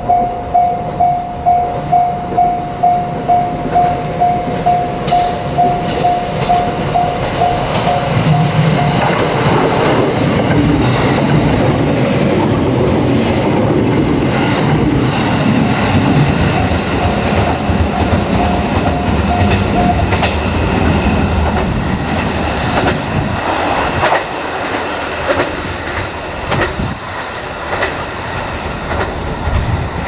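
A Japanese level-crossing warning bell rings about twice a second. Then a JR Kyushu 787 series electric limited express passes close by, its wheels clattering over the rail joints, and drowns the bell. The bell stops about twenty seconds in, and the train sound fades.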